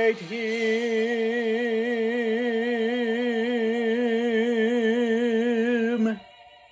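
A solo singer with vibrato sings the closing words 'celebrate him' and holds the last note for about six seconds, ending the song. A piano chord dies away briefly after the voice stops.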